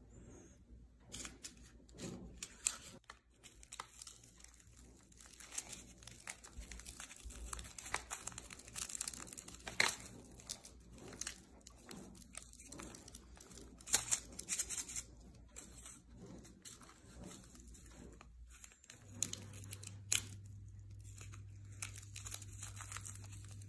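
Small foil sachets being torn open and crinkled by hand, an irregular run of crackling and rustling with sharper tears now and then.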